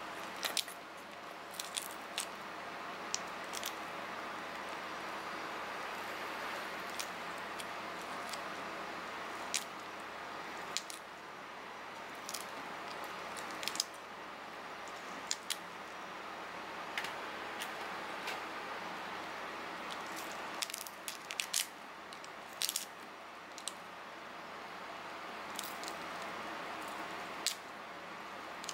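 Mantis shrimp shell being peeled apart by hand: scattered, irregular sharp crackles and snaps as the shell segments break and pull away, over a steady background hiss.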